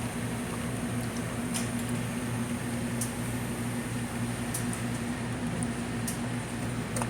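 Steady machine hum with a low, even drone, and a few faint clicks.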